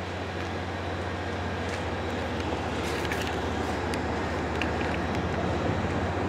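Steady low mechanical hum under an even rushing noise, growing slowly louder, with a few faint ticks.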